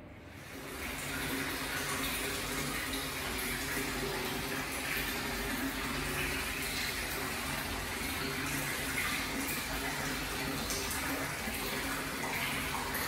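Hot-spring water pouring steadily from a pipe spout into a tiled bath, a continuous splashing that comes up over the first second and then holds level.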